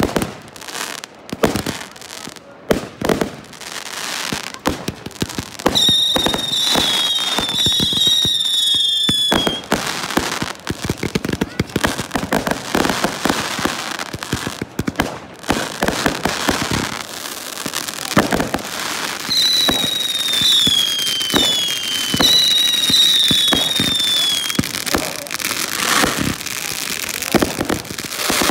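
Fireworks display with a dense, continuous run of cracks and bangs as shells and crackling stars burst. Twice, high whistles that slide down in pitch ride over the crackle for a few seconds each.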